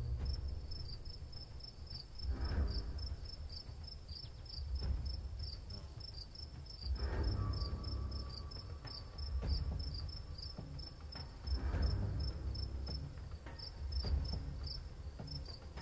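Crickets chirping in a steady run of short, high chirps, several a second, as night ambience. Under them a low rumbling swell recurs about every two and a half seconds.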